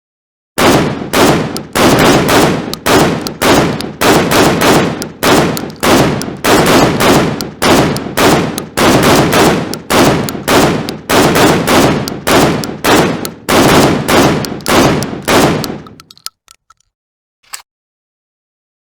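AA-12 12-gauge automatic shotgun firing full auto: a long, steady string of shots at about three a second, stopping abruptly after some fifteen seconds, followed by a couple of faint clicks.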